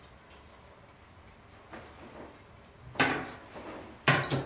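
Sharp clanks of hard objects being handled: one about three seconds in and two in quick succession near the end, with only faint background before them.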